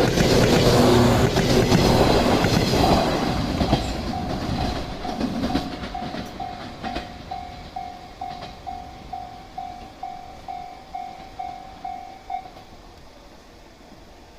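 A 115-series electric train runs past a level crossing, loud at first with wheels clacking over the rail joints, then fading away over the first several seconds. The crossing's electronic warning bell rings as a single tone about twice a second throughout, and stops about twelve seconds in as the crossing clears.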